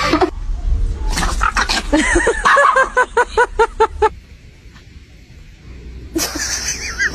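An animal calling: a run of short pitched calls repeated in quick succession, about four a second, ending about four seconds in, then one more brief call near the end.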